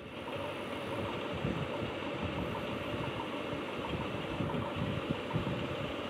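Steady mechanical running noise, like a motor or engine running, starting abruptly and continuing evenly.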